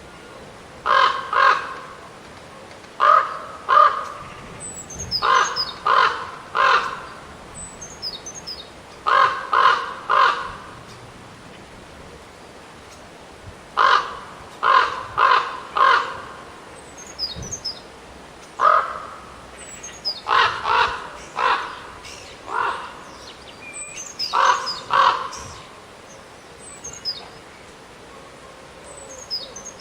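Ravens calling: short harsh caws in pairs and triplets every few seconds. A small songbird gives thin, high, falling chirps between the caws.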